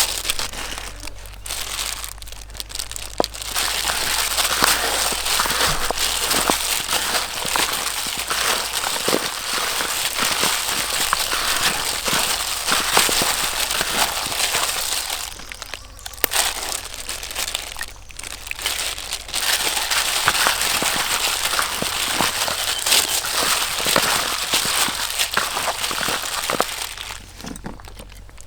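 Food frying in hot oil, a dense sizzle full of small crackles. It comes in two long stretches with a brief drop in the middle.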